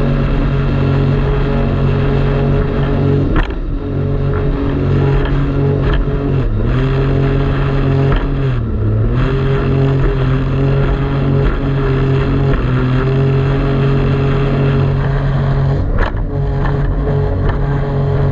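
Jet ski engine running steadily at speed, its pitch dipping briefly twice as the throttle eases and picks up again. Two short sharp knocks, one about three seconds in and one near the end.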